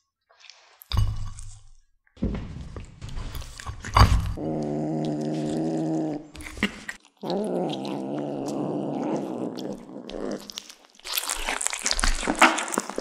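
Kittens gnawing and chewing a raw duck leg, with wet biting and crunching sounds, after a thump about a second in. Twice a kitten gives a long, low growl over the food.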